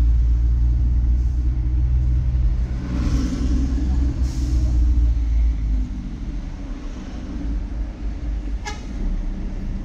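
Engine and road noise heard from inside a moving vehicle in city traffic, a steady low rumble that eases off about halfway through as the vehicle slows. A short high-pitched tone sounds once near the end.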